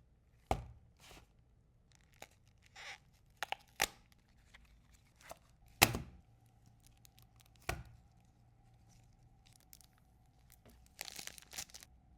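Trading-card deck packaging being unboxed by hand: tearing and crinkling with several sharp clicks and taps, the loudest about six seconds in, and a burst of rustling near the end.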